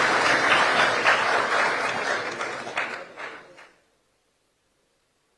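Members applauding, a dense patter of claps that thins to a few separate strokes and cuts off abruptly about three and a half seconds in, followed by silence.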